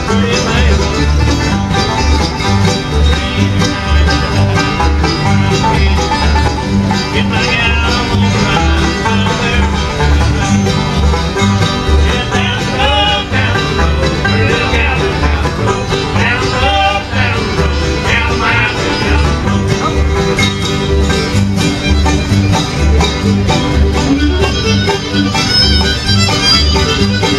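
A bluegrass band playing an instrumental number: fiddle over banjo and guitar, with low bass notes on a steady beat.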